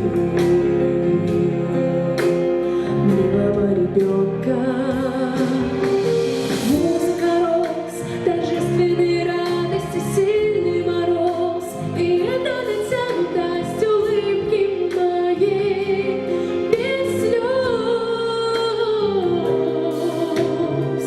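A song: a woman's singing voice over instrumental backing, with long held notes that waver in pitch.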